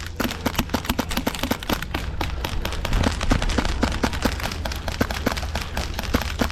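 Airsoft guns firing rapidly as suppressing fire: a dense, irregular run of sharp shots several times a second.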